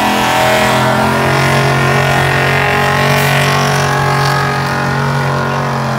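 Pickup truck's engine running hard at steady high revs under full load as it drags a weight-transfer pulling sled down the track.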